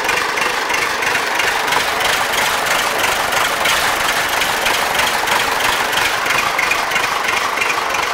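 MTZ-80 tractor's D-240 four-cylinder diesel engine idling steadily, heard close to the open engine bay.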